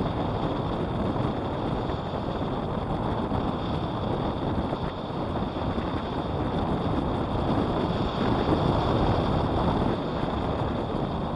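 Steady rush of wind over the camera microphone of a hang glider in flight, swelling a little about eight seconds in.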